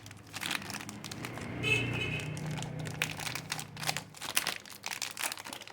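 Plastic soap wrapping crinkling and crackling as it is unwrapped by hand, with a low hum through the middle.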